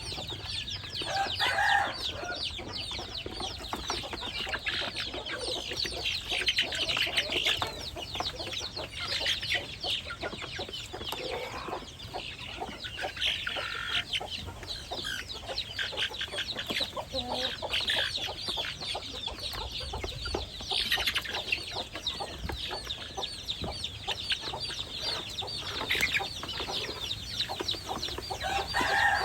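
Young chicks cheeping continuously, a dense stream of short high peeps, with a few lower, louder calls now and then.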